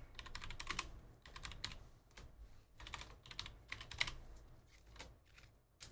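Faint typing on a computer keyboard: several short flurries of key clicks with pauses between them.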